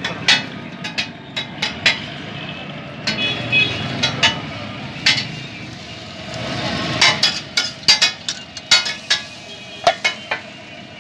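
Metal spatula clanking and scraping on a large flat griddle in quick, irregular sharp clinks, thickest a few seconds before the end, over the sizzle of eggs and burger patties frying on the hot surface.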